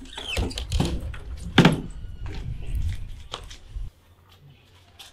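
Knocks and thuds of a wooden door being pushed and shut, with one loud bang about one and a half seconds in. The sound drops away suddenly near the end to faint outdoor quiet.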